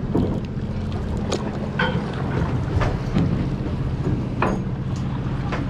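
Steady hum of a fishing boat's engine, with wind noise and a few sharp clicks and knocks of gear being handled.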